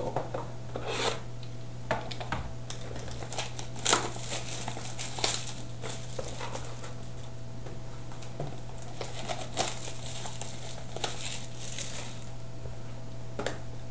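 Plastic wrapping on a trading card box being torn and crumpled by hand, in scattered crinkles and rips, over a steady low hum.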